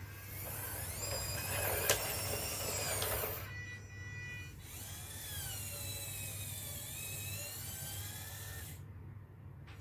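Small electric gear motor and plastic gearing of a 3D-printed RC KV-1 tank model whining as the turret traverses, the whine rising and falling in pitch, with a sharp click about two seconds in.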